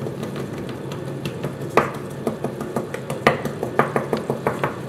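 Fork tines pricking a sheet of rolled shortcrust dough on a table: a run of light, uneven taps, several a second, over a steady low hum.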